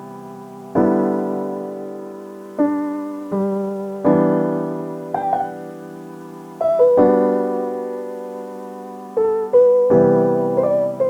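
Background piano music: slow chords struck every couple of seconds and left to ring and fade, with a few melody notes over them.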